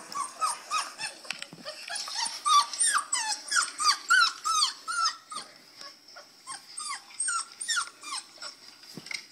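Recording of puppies crying, played back from a device: a quick run of short, high whining squeals, two or three a second, each dipping in pitch, over a faint steady hiss. A single soft knock near the end.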